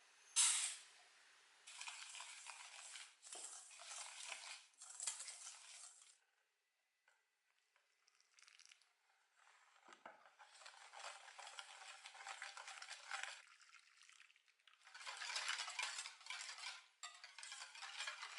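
Stirring in a mixing bowl: a utensil scrapes and clinks against the bowl in bursts of a few seconds, with a quiet pause of several seconds midway. A sharp knock about half a second in is the loudest sound.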